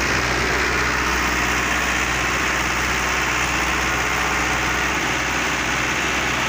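Digitrac PP51i tractor's diesel engine running at a steady, unchanging note, hitched to a Lemken plough in the furrow.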